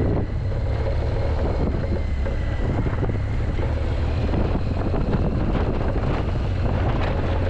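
BMW motorcycle engine running steadily at low speed on a gravel track, with wind noise on the microphone.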